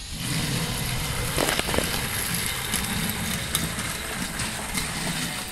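Battery-powered Thomas & Friends toy trains running on plastic track, a steady motor whir with wheel rattle, and a couple of clicks about one and a half seconds in.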